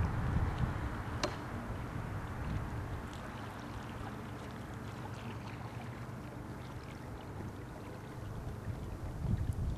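Wind buffeting the microphone outdoors, an uneven low rumble. A few faint sharp ticks come through, the clearest about a second in.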